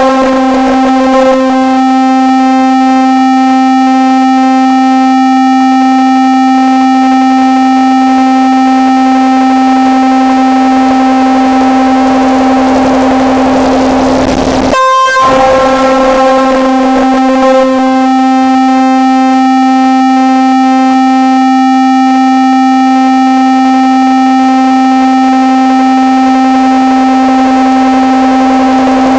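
Harsh-noise electronic music: a loud, distorted synthesizer drone holding one buzzing pitch, with a brief dropout about halfway through.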